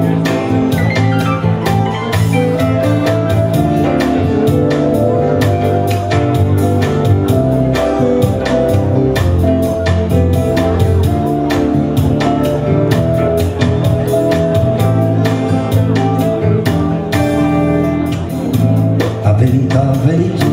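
Live music: an acoustic guitar strummed steadily together with an electronic keyboard playing sustained notes.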